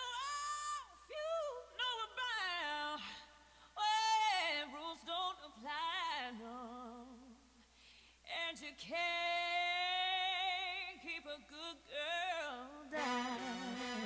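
A woman singing a slow solo with wide vibrato and long held notes, with little beneath it; fuller backing music comes in about a second before the end.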